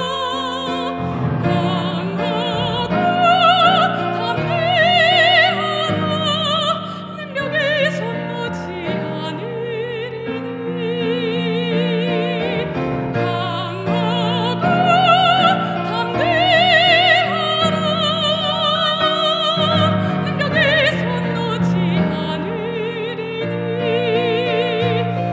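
Operatic singing with a wide vibrato on held notes, over instrumental accompaniment.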